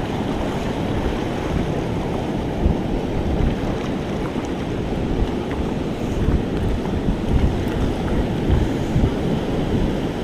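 Ocean surf washing onto the beach, with wind buffeting the microphone.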